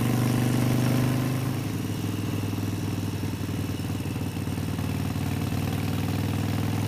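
Harley-Davidson Sportster 72's 1200 cc V-twin engine running steadily while riding. The engine note gets a little quieter about a second and a half in, then runs on evenly.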